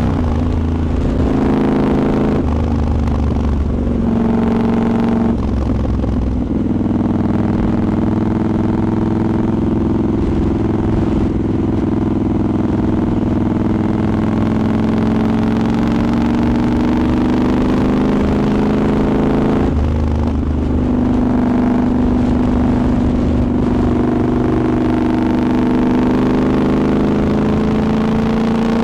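Triumph Scrambler 1200's parallel-twin engine heard onboard while riding, its pitch stepping up through several gear changes in the first seven seconds, holding steady, then after another shift about twenty seconds in climbing slowly as it accelerates.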